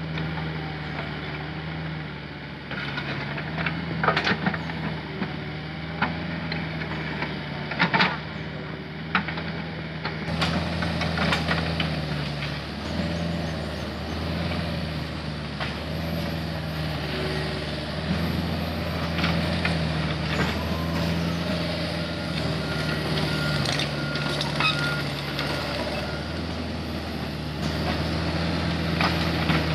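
Komatsu mini excavator's diesel engine running steadily, rising and falling a little as the machine travels on its crawler tracks. There are two sharp knocks, about four and eight seconds in.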